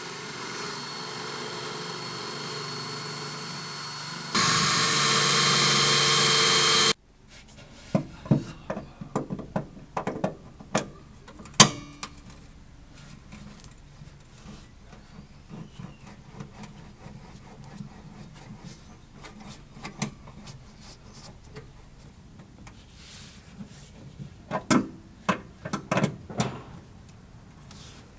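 Power drill running steadily on a snapped steel bolt, getting louder about four seconds in, then stopping abruptly. It is followed by scattered metal clicks and knocks of hand tools working at the bolt, loudest about twelve seconds in and in a cluster near the end.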